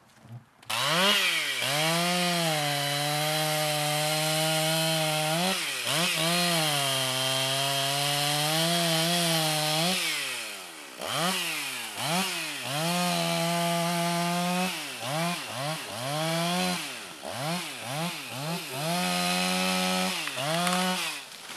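Two-stroke chainsaw cutting into a tree trunk at high revs, its pitch sagging and recovering as the chain bites into the wood. From about halfway it is revved up and down many times in quick succession.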